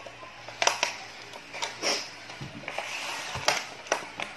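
Clear plastic clamshell food container crackling and snapping as its lid is pried off, a few sharp plastic clicks spread through the few seconds.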